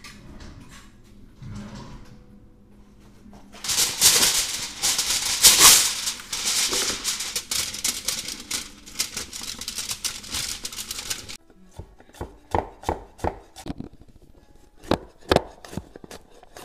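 Asparagus tipped from a metal colander onto a foil-lined baking tray, with a loud crinkling rustle of foil and spears for several seconds. A chef's knife then chops on a wooden cutting board in quick, uneven knocks.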